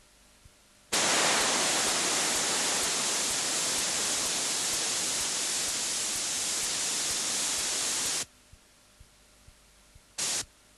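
A loud, steady, static-like hiss starts sharply about a second in and cuts off suddenly about seven seconds later, followed by two short bursts of the same hiss near the end. In the quiet stretches, faint ticks come about twice a second.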